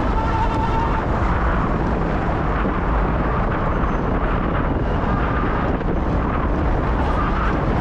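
Steady, loud rushing noise with a deep rumble underneath: wind on the microphone and traffic while riding an e-bike.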